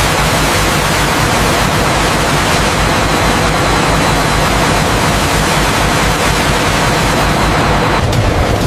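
Thick wood-pulp slurry gushing from a steel tank outlet: a loud, steady rushing with a low throbbing rumble underneath. The rushing shifts near the end, when the pulp is falling into the refiner.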